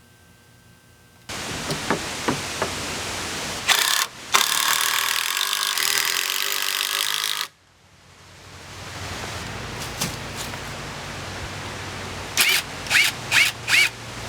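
Porter Cable brushless impact driver hammering 3-inch screws into pressure-treated lumber, in long runs, then four quick short bursts near the end as a screw is snugged home.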